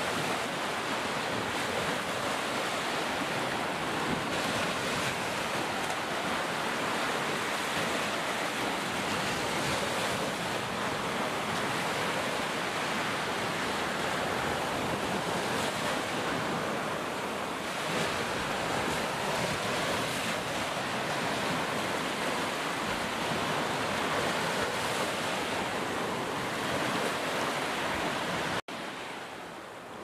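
Ocean surf: waves breaking and washing in a continuous rushing hiss that swells and eases slowly. It cuts out abruptly for an instant near the end.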